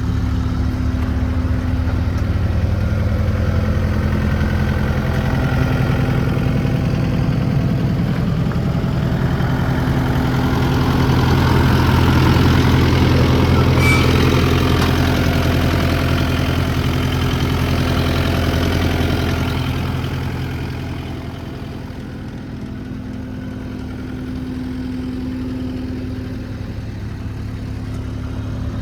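Takeuchi TL8 compact track loader's 3.3-litre four-cylinder Kubota turbo diesel running steadily, growing louder about a third of the way in, then dropping back to a quieter, lower run about three-quarters of the way through.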